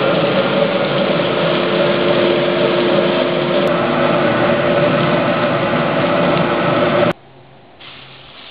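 Commercial coffee roaster running as freshly roasted beans pour from the drum into the cooling tray and are stirred by its rotating arms: a loud, steady machine noise with the hiss of tumbling beans. It cuts off suddenly about seven seconds in, leaving a faint low hum.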